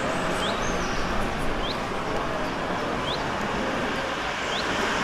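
A bird gives a short rising chirp four times, evenly spaced, over a steady rushing background noise.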